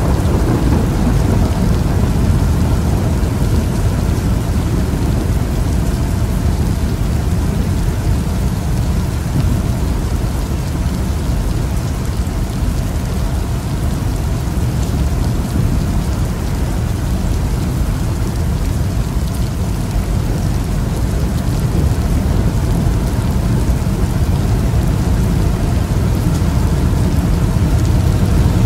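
Steady rain during a thunderstorm, heard from inside a moving car, under a constant deep rumble. The loudness stays nearly even.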